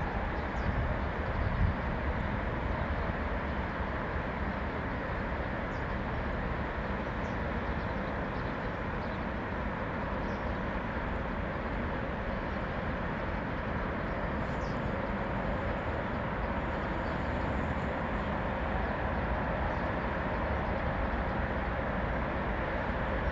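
Steady rumble of distant road traffic, with faint bird chirps a few times.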